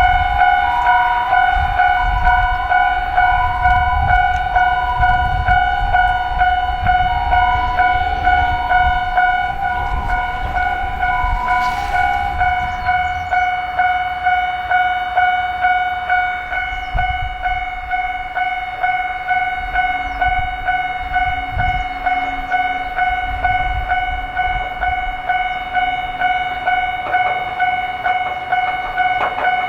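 Japanese level-crossing warning bell ringing in rapid, even strokes while a Wakayama Electric Railway Kishigawa Line train rumbles past.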